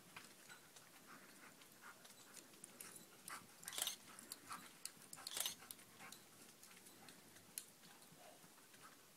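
Near silence, with faint scattered ticks and two brief rustling bursts about four and five and a half seconds in.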